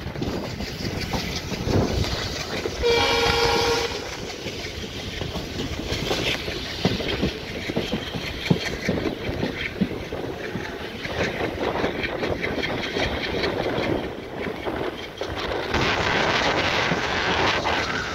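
A train's wheels clatter and rattle over the rails as it runs along, heard from aboard. About three seconds in, the locomotive's horn sounds one blast lasting about a second. The rattle grows louder near the end.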